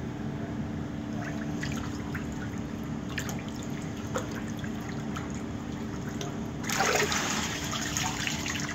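Water dripping and splashing in a hydrographic dipping tank, with scattered small drips. About seven seconds in comes a louder rush of pouring water lasting about two seconds.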